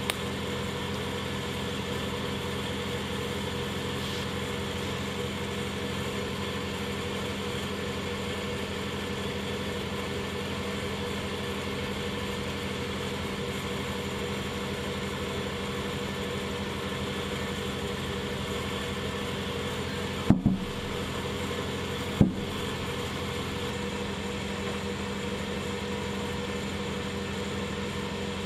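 Steady hum of workshop machinery, an even drone with a fan-like hiss. It is broken twice, about 20 and 22 seconds in, by a short sharp knock.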